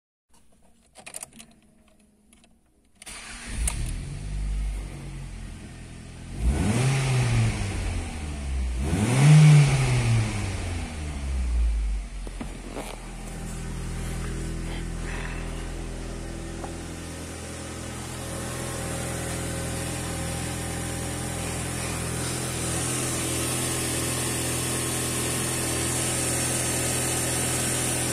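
Ford Mondeo Mk3 1.8i (CHBB) four-cylinder petrol engine starting about three seconds in after a few faint clicks. It is revved twice, its pitch rising and falling each time, then settles into a steady idle.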